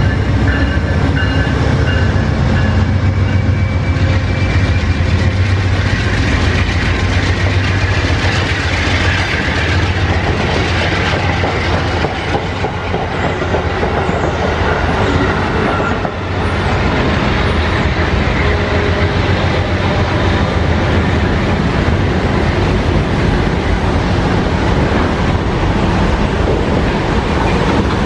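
Amtrak GE P42DC diesel locomotive engine running hard as it passes, followed by the long, steady rumble and rattle of passenger-car wheels on the rails as the train goes by.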